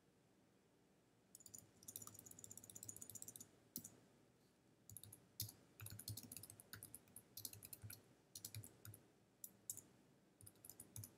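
Near silence with faint, irregular clicking scattered through most of it.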